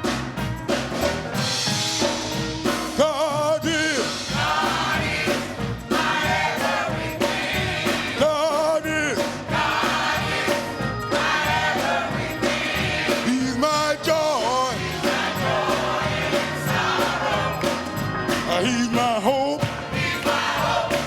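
Gospel music in a church service: voices singing over a band, with a voice holding wavering, vibrato notes several times.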